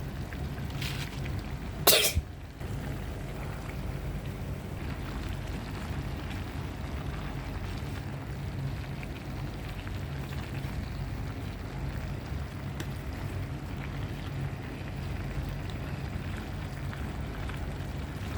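A person coughs once, briefly, about two seconds in, over a steady low hum.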